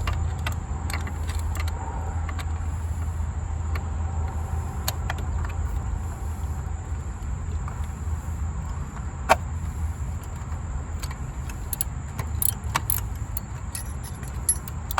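Scattered metallic clicks and clinks of a ratchet and socket loosening a spark plug, with one sharp click about nine seconds in, over a steady low hum.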